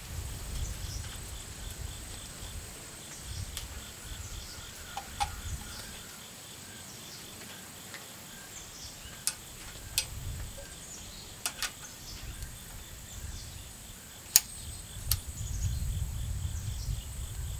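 Scattered sharp clicks and taps of a ramrod and loading gear as a bullet is worked down the barrel of a .45 caliber muzzleloader. Steady high insect chirring runs throughout.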